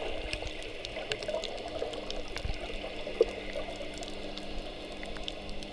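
Underwater ambience: a steady muffled rush of water with many scattered small clicks and bubble pops, and one sharper pop about three seconds in.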